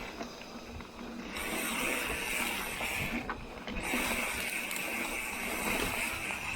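Industry Nine Hydra rear hub's freehub buzzing as a mountain bike coasts on a trail. The high buzz cuts out twice, about a second at the start and briefly past the middle, as pedalling engages the hub. Tyre and trail rumble runs underneath.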